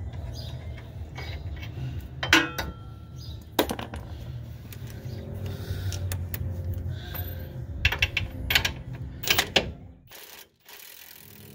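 Sharp metallic clinks and knocks of hand tools and steel suspension hardware being handled and worked, in a few separate strikes and a quicker cluster later on, over a steady low hum.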